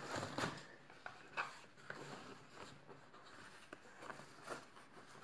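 Faint, scattered taps and rustles of a small cardboard box being handled and turned over.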